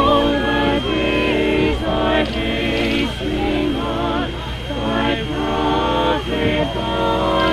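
Choir music: voices singing held chords that change every second or so.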